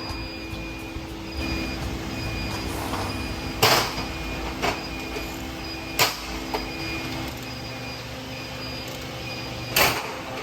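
Repair work on a car's strut assembly in a workshop: a steady low background hum broken by three short, sharp, hissing bursts a few seconds apart, with a couple of fainter knocks between them.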